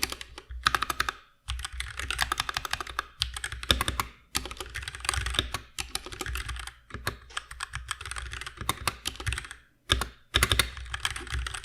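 Typing on a Keychron K6 hot-swappable mechanical keyboard fitted with Gateron Red linear switches: quick runs of key clacks broken by a few brief pauses.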